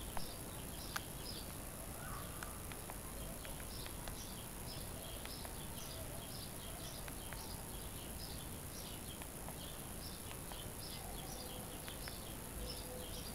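Faint cricket chirping, a steady run of short high chirps about two or three a second, with a small knock near the start.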